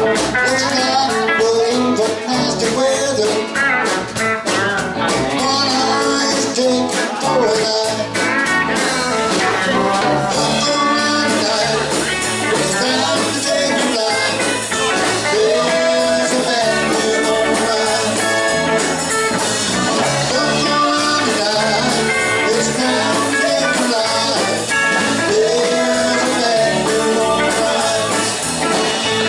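Live country band playing: electric guitars, bass guitar and a drum kit.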